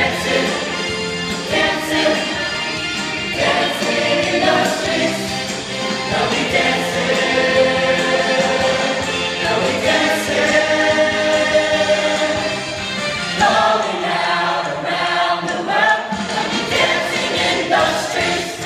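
High school glee club of mixed male and female voices singing a song together as a choir.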